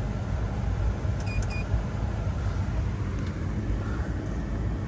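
Steady low rumble of the Chevy Tahoe heard from inside the cab, with two short high-pitched beeps close together about a second and a half in.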